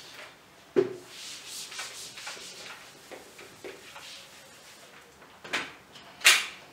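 Whiteboard eraser rubbing across a whiteboard in wiping strokes. There is a knock about a second in, and two short, sharper sounds near the end, the second of them the loudest.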